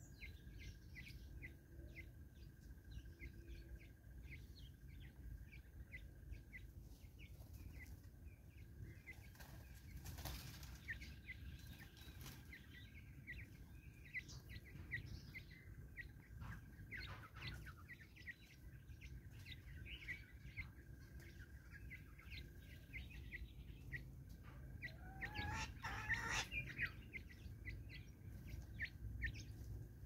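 Faint sounds of Natal spurfowls feeding on seed on bare ground: many short quick ticks, and a wing flutter, with a short bird call near the end. A faint steady high tone comes and goes.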